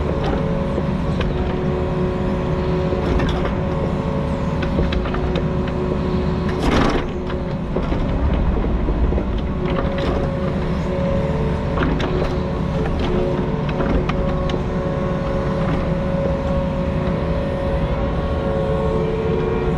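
Diesel engine of a compact construction machine running steadily at work, with scattered metallic clanks and knocks, the loudest about seven seconds in.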